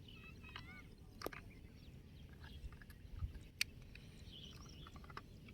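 A few faint, sharp clicks and taps of plastic toy vehicles being handled and pulled free, with faint chirps near the start.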